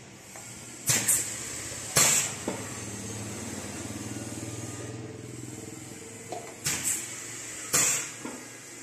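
Semi-automatic pneumatic piston filling machine cycling. It makes sharp bursts of compressed air from its air valves, with clacks, in two pairs about a second apart, and a lower steady mechanical sound between them.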